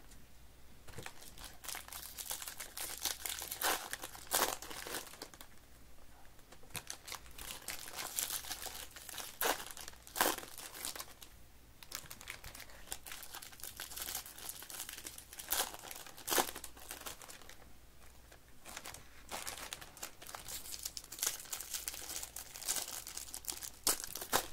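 Foil wrappers of Topps baseball card packs crinkling and tearing as they are opened and handled, an irregular run of crackles with several sharp louder ones.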